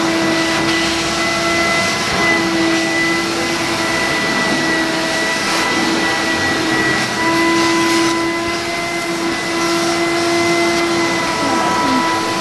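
Vacuum cleaner running steadily while its hose nozzle is worked over fabric sofa upholstery. A constant motor whine and airflow rush, with the whine wavering slightly in pitch.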